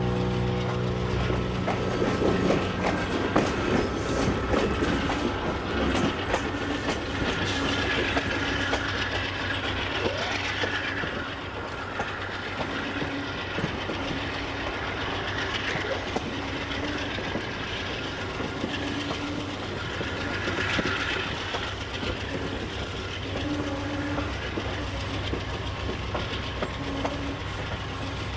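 A train running along the rails: a steady, even noise with a low hum underneath.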